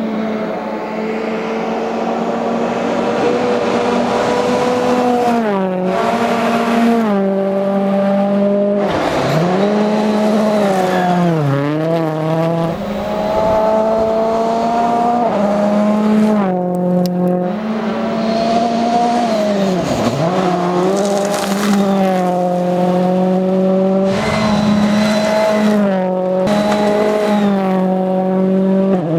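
Ford Fiesta rally car's engine running hard at speed, its pitch stepping up and down with gear changes and dropping deeply twice, about eleven and twenty seconds in.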